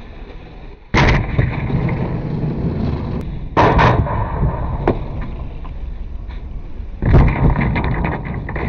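Skateboards landing hard on asphalt off small plywood ramps, three times, each sharp slap followed by the rumble of the wheels rolling on the pavement, with a few lighter clacks between.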